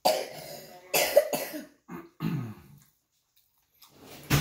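A person coughing, a few hard coughs in the first two seconds or so. A sharp knock comes near the end.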